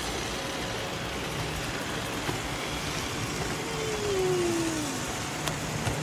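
Robot vacuums running in a balloon-filled play pen, a steady whirring hum under a constant rush of wind noise, with a brief falling tone about four seconds in.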